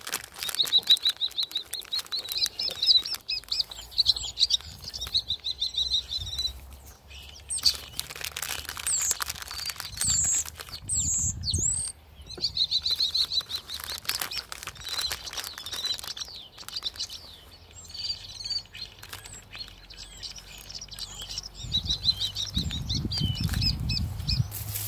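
Birds chirping and trilling in spells at a high, steady pitch, with many sharp clicks in between. A low rumble comes in near the end.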